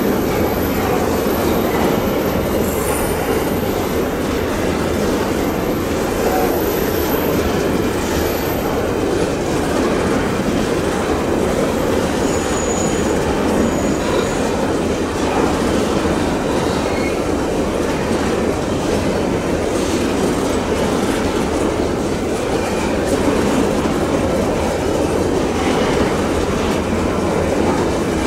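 Empty steel coal hopper wagons of a long freight train rolling past, a steady rumble and clatter of wheels on the rails.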